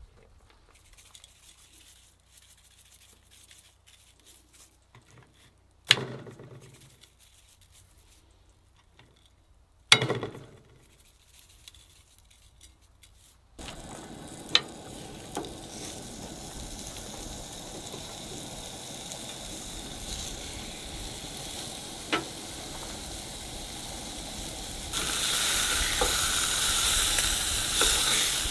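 Two sharp knocks, then fat sizzling steadily in a frying pan on a camp stove. Near the end the sizzle gets louder as pork chops fry in the pan.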